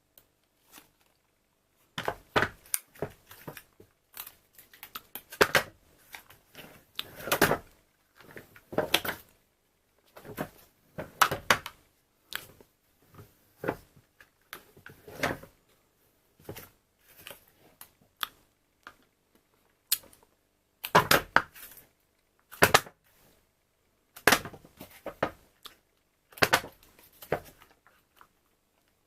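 A plastic yogurt pot and its foil lid being handled and opened: irregular crackles and clicks in short bursts, with pauses between.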